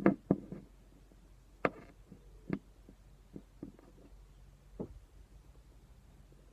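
A series of small sharp knocks and clicks, like small objects being handled and set down: a quick cluster at the start, then single taps about a second apart, stopping about five seconds in.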